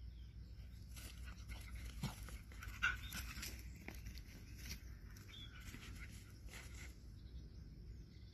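Dogs making short, scattered sounds, the loudest and sharpest about three seconds in, over a low steady rumble.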